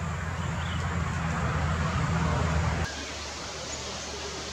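Steady low rumble under a hiss of background noise, which cuts off abruptly about three seconds in; a quieter, even outdoor background follows.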